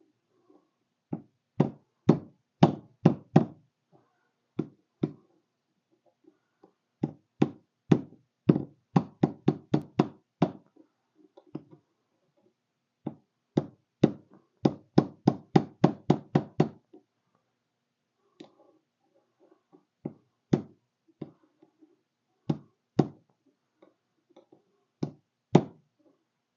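Hammer tapping the outside metal edge of an ignition switch to crimp it back over the switch's white inner part. The taps come in several quick runs, then as single taps a couple of seconds apart near the end.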